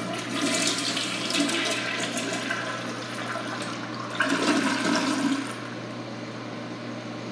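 A 2004 Mansfield Alto toilet flushing: water rushes through the bowl, surges again about four seconds in, then drops to a quieter steady running.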